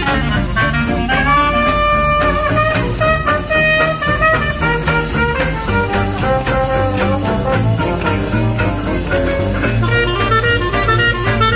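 Live traditional jazz band playing swing: clarinet, trumpet and trombone carry held notes and melodic runs over a rhythm section of double bass, strummed strings and drum kit.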